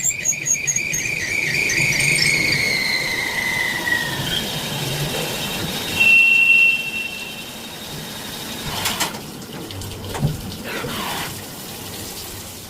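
Cutting tool squealing against a workpiece on a CNC lathe: a high, rapidly pulsing squeal that slowly falls in pitch over the first few seconds, a short louder steady squeal about six seconds in, then two brief scraping noises near the end.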